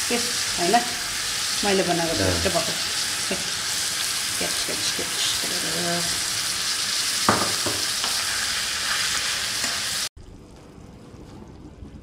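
Pork pieces frying in oil in a wok, a steady sizzle, with a spoon scraping and stirring as chili paste is scraped from a mortar into the pan. The sizzle cuts off abruptly about ten seconds in, leaving a much quieter room.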